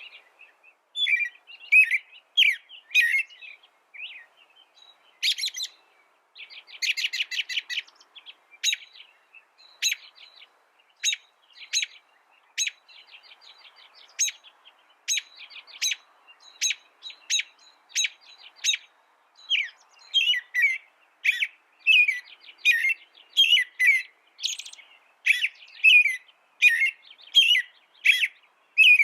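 A finch singing: a long run of short chirps and twitters, with a fast rattling trill about seven seconds in. The notes come in quick, even repeats through the second half.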